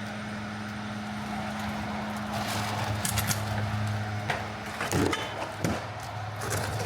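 City street ambience: a steady low mechanical hum over an even background hiss, with a few sharp knocks and clatters in the second half.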